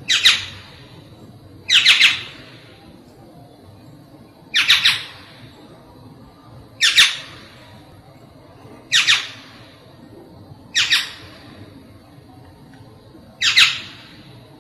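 Black-naped oriole giving harsh, nasal squawking calls, seven short calls spaced about two seconds apart.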